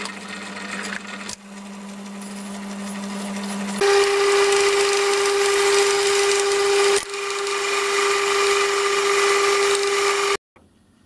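Myford metal lathe running with a steady hum while machining a phosphor bronze piston blank, first turning it and then drilling it from the tailstock chuck. The hum jumps to a higher pitch about four seconds in and cuts off abruptly near the end.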